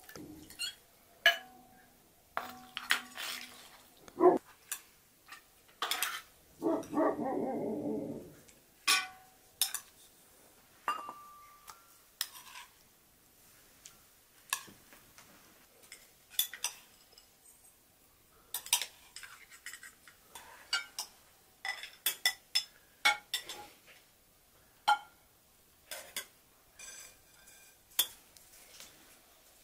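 Metal cutlery clinking and tapping against dishes in scattered, irregular strokes. An animal calls once for about two seconds, around seven seconds in.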